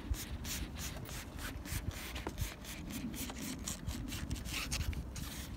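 Fingers pressing and rubbing along a rubber door seal as it is worked down onto the door frame's rail, giving a quick run of short rubbing strokes, about four to five a second.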